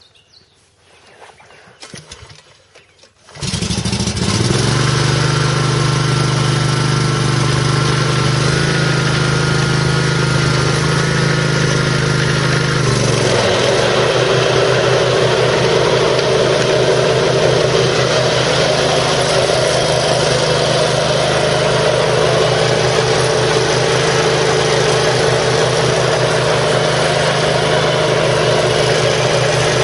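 Exmark Turf Tracer HP zero-turn mower's 17 horsepower Kawasaki V-twin engine starting up about three seconds in, then running steadily. About thirteen seconds in its note drops a little and turns rougher, and it keeps running that way.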